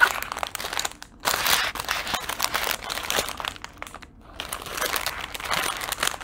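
Small plastic bags of diamond painting drills crinkling as they are flipped through by hand, in irregular bursts with two short lulls, about a second in and about four seconds in.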